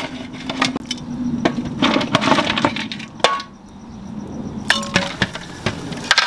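Metal ladle and large metal cooking pots clinking, knocking and scraping as cooked curry meat is scooped and tipped from one pot into a wide cooking vessel. The clinks come in quick irregular bursts, with a short metallic ring twice.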